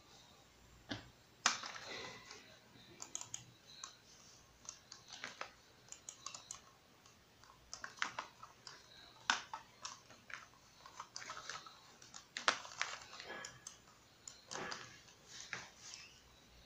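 Irregular clicking of a computer mouse's buttons, single clicks and short quick runs, a few sharper than the rest.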